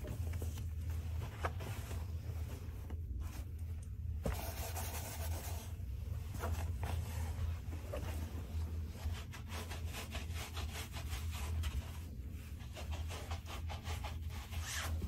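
Rustling and rubbing of a thick canvas drawstring bag and canvas room slippers as they are handled and put on, then soft scuffs of the slippers on a wooden floor near the end, over a steady low hum.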